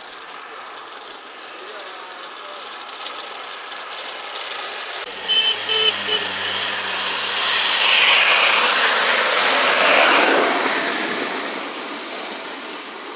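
Homemade wooden race cart (carruzzuna) on ball-bearing wheels rolling down an asphalt street and passing by: a rolling noise that grows from about five seconds in, is loudest around eight to ten seconds, then fades.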